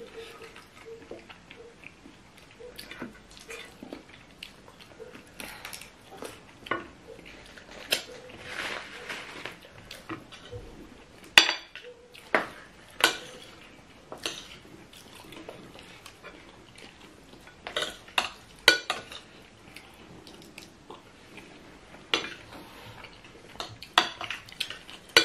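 Metal spoons clinking and scraping against plates as two people eat rice and soup: irregular sharp clinks, a few of them loud, with a short stretch of scraping about eight seconds in.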